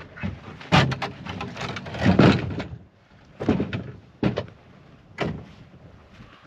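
Plywood sheet being handled and set down on a pile of gear: a series of wooden knocks and scrapes, the longest and loudest about two seconds in.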